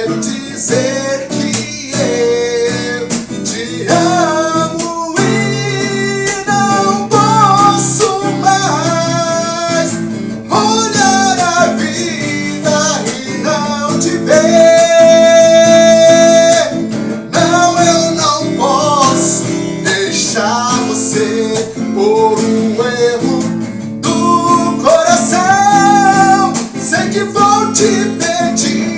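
Music: strummed acoustic guitar with a melody line over it, which holds one long note about halfway through.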